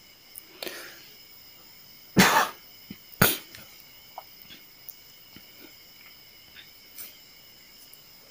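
A person coughs twice, about a second apart, a little over two seconds in, with a fainter breathy sound before them.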